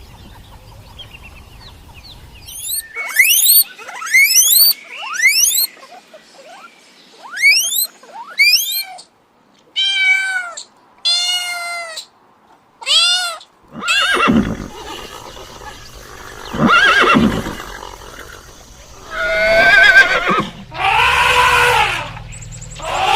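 A series of animal calls: quick upward-sweeping chirps for several seconds, then a few short arched cries, then longer, lower and fuller calls toward the end.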